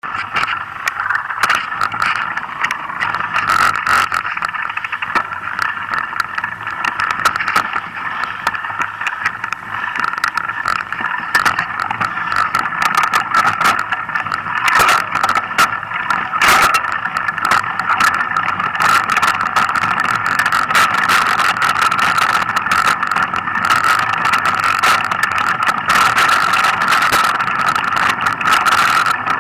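Mountain bike riding down a dirt forest trail, heard from a bike- or helmet-mounted camera: a steady rushing noise with many clicks and knocks as the bike rattles over the bumps.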